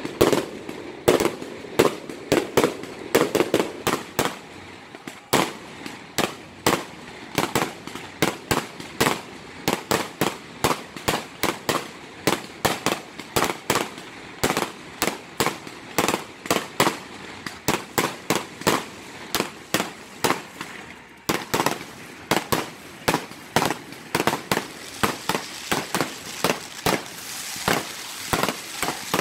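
Fireworks display: a continuous barrage of sharp bangs from bursting aerial shells, about three a second, with a hiss building in the last few seconds.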